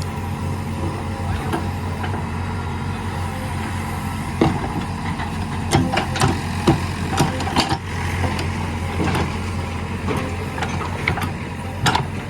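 JCB 3DX backhoe loader's diesel engine running steadily, with a scattering of sharp knocks and clanks over the second half.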